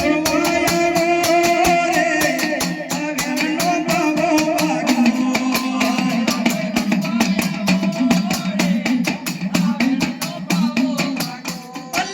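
Live Gujarati dakla devotional folk music: a fast, steady drum beat under a sustained, wavering melody line.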